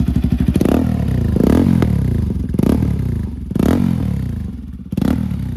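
Bajaj Pulsar RS200's single-cylinder engine through an aftermarket Akrapovic exhaust, revved in five quick throttle blips, each rising and falling back to idle.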